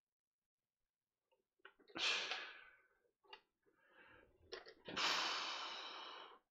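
A man's forceful breaths out while exercising: one about two seconds in and a longer one about five seconds in that fades out over a second and a half, with a few light clicks between them.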